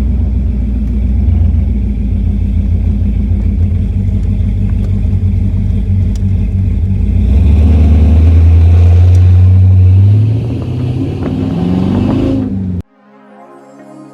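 Car engine and exhaust running steadily under way with a low drone. About halfway through it gets louder, then revs up with a rising pitch before cutting off abruptly. Soft synth music follows near the end.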